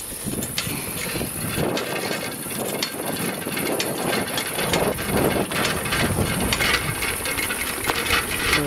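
Bicycle rattling over a rough gravel road, tyres crunching on the stones, with dense irregular clicking and knocking from the bike.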